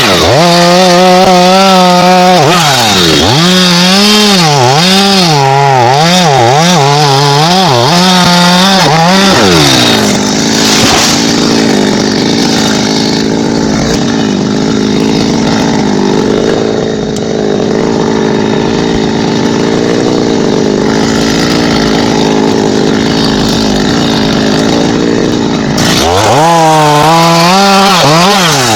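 Petrol chainsaw running: its engine is revved up and down over and over, then held at a steadier, lower pitch for about fifteen seconds, then revved up and down again near the end.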